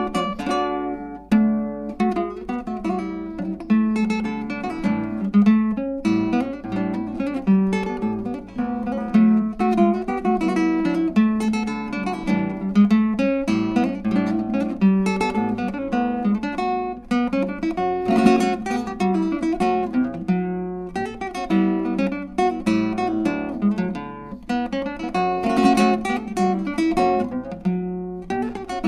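Background music: acoustic guitar playing, plucked and strummed notes at a steady pace.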